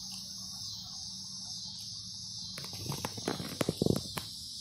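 Steady high chirring of crickets, with a cluster of sharp close crackles and taps about two-thirds of the way in as a Mentos roll's paper wrapper is peeled and the candies handled.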